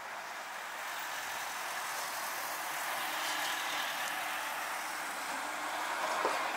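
A car passing close by on a city street, its tyre and engine noise swelling and then easing off, with a brief squeak near the end.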